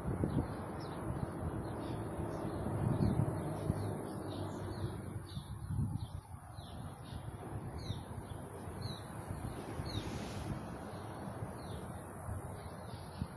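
Small birds chirping repeatedly, short falling chirps about twice a second, over a steady low rumbling noise.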